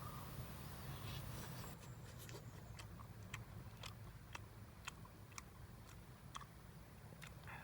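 Faint crunchy chewing: a run of sharp, crisp clicks at an uneven pace of about one or two a second, starting about two seconds in, over a low steady hum.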